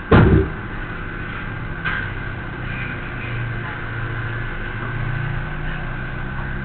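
A single heavy thump right at the start, then steady room noise carrying a faint steady tone and a low, indistinct rumble that rises and falls, with a small click about two seconds in.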